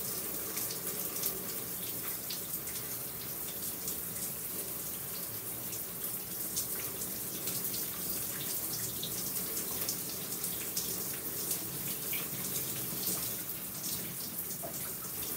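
Shower running steadily, its spray pattering onto a person and the tub.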